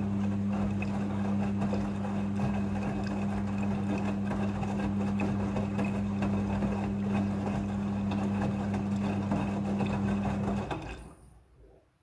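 Midea front-loading washing machine's motor driving the drum at speed with a wet load, a steady hum with a low whine. Near the end the motor cuts out and the sound dies away over about a second as the drum stops.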